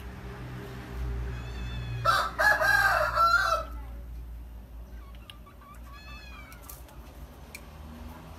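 A rooster crowing once, loud, about two seconds in and lasting about a second and a half. Faint high, falling chirps sound before and after it.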